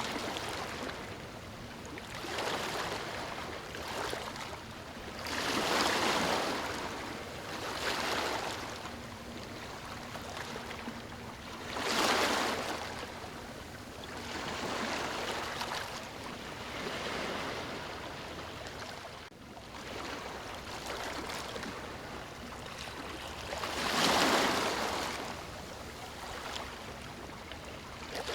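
Ocean waves washing in and drawing back, the noise swelling and fading every few seconds, with a few louder breakers standing out.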